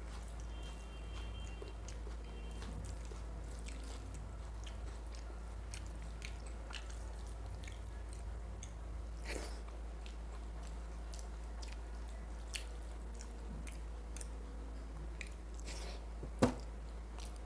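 Close-up chewing of mutton curry and rice: wet mouth sounds and scattered small clicks, with one sharper click near the end.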